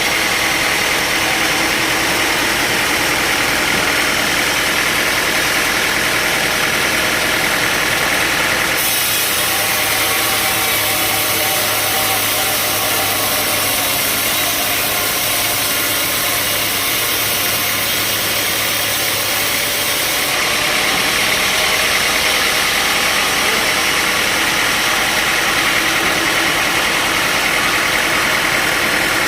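Sawmill machinery running steadily, a constant engine hum under a hiss. About nine seconds in the sound changes abruptly to a brighter hiss over a low hum, and switches back about twenty seconds in.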